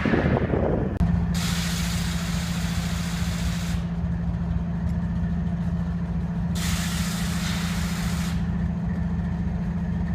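BNSF diesel locomotive engine running with a steady low drone, while compressed air hisses out loudly twice, each blast about two seconds long. The uploader suspects a blown air compressor on the misfiring, stranded locomotive.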